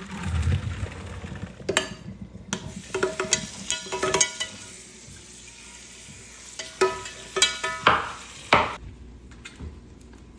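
A utensil stirring food in a pot, scraping and knocking against it with short ringing clinks, while the food sizzles in hot oil. The clinks come in clusters, thickest in the middle and again near the end.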